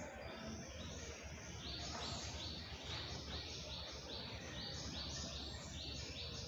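Faint background noise: a steady low hum under a soft, high, hissy chirping that repeats two to three times a second.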